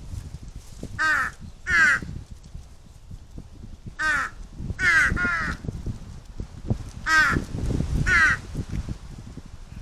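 Large-billed crows cawing: about seven harsh caws, some in quick pairs, over low rumbling wind noise on the microphone.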